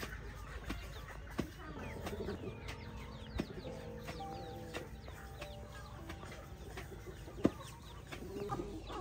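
Hens clucking, with dull knocks of a long wooden pestle pounding into a stone mortar, about one a second; the loudest knock comes near the end.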